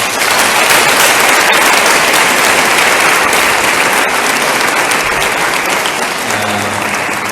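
A congregation applauding: dense, sustained clapping that starts suddenly and eases off near the end.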